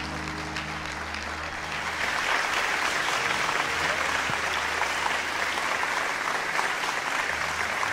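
Audience applauding, swelling about two seconds in and holding steady, with a low steady tone underneath.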